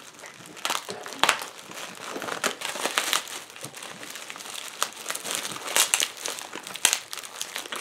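Plastic bubble wrap crinkling and crackling irregularly as hands pull it off a small boxed item.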